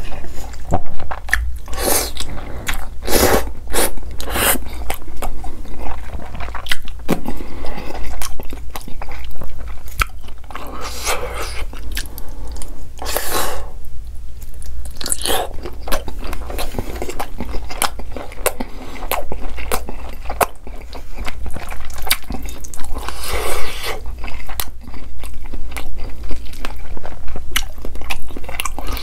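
Close-miked eating: noodles slurped up in long pulls, and a large grilled sausage bitten into and chewed, with many sharp bite and chew sounds.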